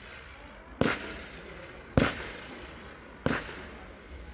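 Consumer fireworks going off: three sharp bangs about a second and a quarter apart, each trailing off in an echo.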